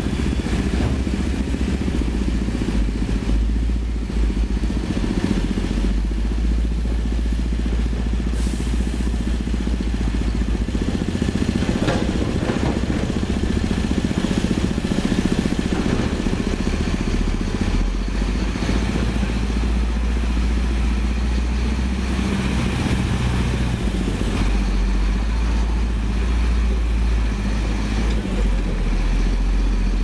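Heavy diesel engines of concrete mixer trucks and site machinery running steadily, with a few knocks and clanks.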